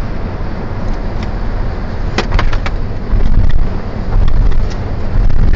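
Road and wind noise inside a car moving at motorway speed: a steady low rumble that swells louder after about three seconds. A few sharp clicks come about two seconds in.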